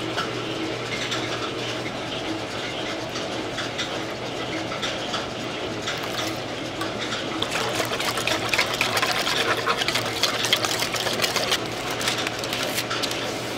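Wire balloon whisk beating a liquid batter in a stainless steel bowl: a quick run of clicks and scrapes of the wires against the metal that gets busier about halfway through, over a steady low hum.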